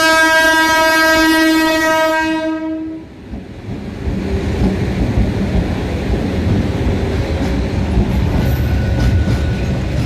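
Freight locomotive horn sounding one long, steady single-tone blast that cuts off after about two and a half seconds. It is followed by the low rumble and wheel clatter of a freight train running past.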